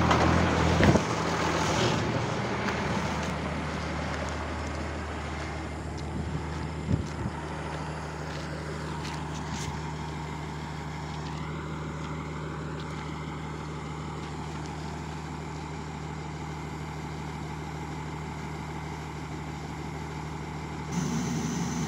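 Engine of a loaded M35A2 6x6 cargo truck running steadily with an even low hum. It fades over the first few seconds, then holds level. A single sharp knock comes about a second in, and a few light clicks follow a few seconds later.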